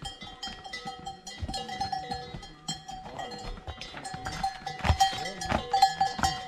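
Bells on livestock clanking and jingling: a ringing note that keeps pulsing, with many sharp metallic clinks. The strikes are loudest about five to six seconds in.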